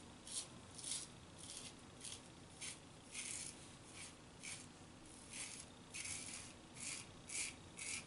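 Razor blade scraping through lathered stubble in short, repeated strokes, roughly two a second.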